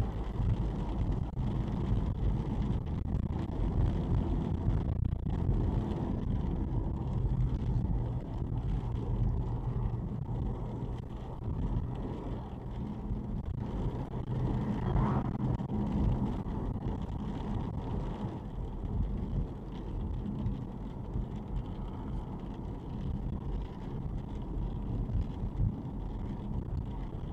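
Steady low rumble of a car's engine and its tyres on a wet road, heard from inside the cabin. An oncoming car passes about halfway through.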